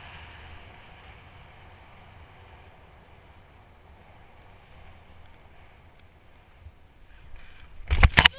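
Wind rushing over the camera microphone as a skydiver glides down under an open parachute, slowly easing off as the canopy slows. About eight seconds in come a few loud thumps as he touches down and falls onto his back.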